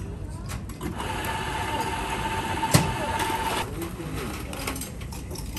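Electric coffee grinder running with a steady whine for about two and a half seconds, a sharp click near the middle, over background café voices.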